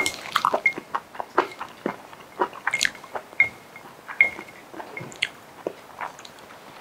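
A spoon and chopsticks scraping and clinking against a bowl while the last of the food is gathered up: an irregular run of small clicks, several with a short ring.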